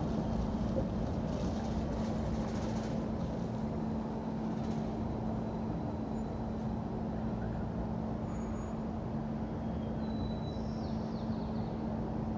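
Steady city street traffic noise: a continuous low rumble of passing vehicles with a steady low hum. A few faint, brief high-pitched squeaks come in near the end.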